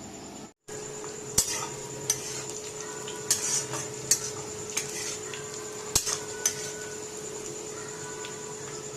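A metal spoon stirring and scraping in a cooking pan, clinking sharply against the metal about seven times, over a steady hum.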